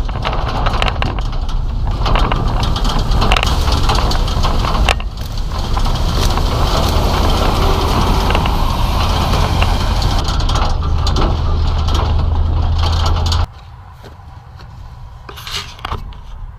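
Semi truck pulling a grain trailer on the road: a steady low engine and road rumble with heavy wind noise on an outside-mounted microphone. It cuts off abruptly about 13 seconds in to a much quieter background.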